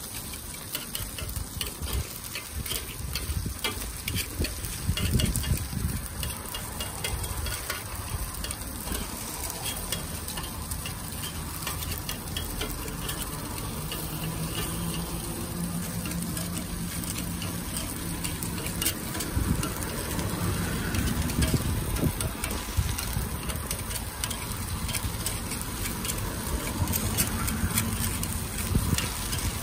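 Takoyaki batter sizzling in a multi-row takoyaki griddle, with light clicks and scrapes of a metal pick against the plate as the balls are turned.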